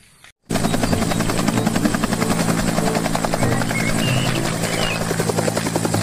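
Bell UH-1 Huey-type helicopter in flight: its two-bladed main rotor gives a rapid, steady chop over a steady engine drone. It starts abruptly about half a second in.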